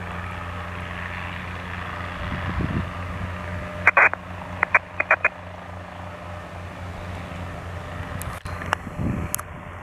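Steady low drone of light piston aircraft running on the field, including a Guimbal Cabri G2 helicopter hovering low. A few short sharp clicks come about four to five seconds in, and another near the end.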